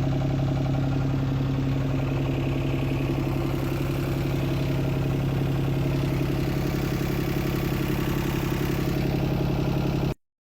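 Digger's diesel engine running at a steady pitch with a rapid clattering pulse, cutting off suddenly near the end.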